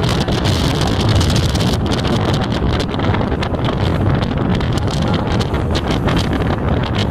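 Wind rumbling and buffeting on the microphone from inside a moving car, over the vehicle's road and engine noise.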